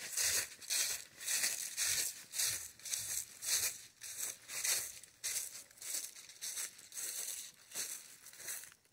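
Footsteps of a person walking at a steady pace, each step a crunch, about two steps a second.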